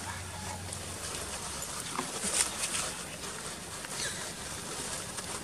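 Baby macaque drinking from a drink carton held to its mouth: small scattered wet clicks and smacks of lips and tongue on the carton, one sharper click about two seconds in.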